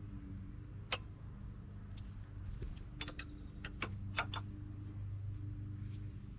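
A few sharp metallic clicks as needle-nose pliers and a brake-shoe return spring knock against the drum brake shoes and backing plate while the spring is worked into its hole: one click about a second in, then a quick cluster a couple of seconds later. A steady low hum runs underneath.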